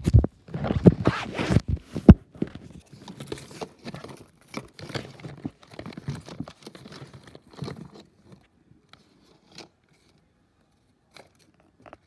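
Handling noise of a handheld phone and a pile of plastic fidget toys being rummaged through: thumps, knocks and crackly rustling, loudest in the first couple of seconds. After about eight seconds it dies down to a few scattered clicks.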